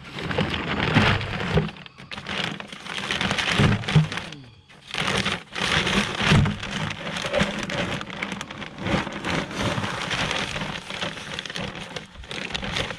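Paper feed bags rustling and a plastic scoop scooping and pouring dry animal feed, a dense crackling rattle with many small clicks. There is a short lull about four and a half seconds in.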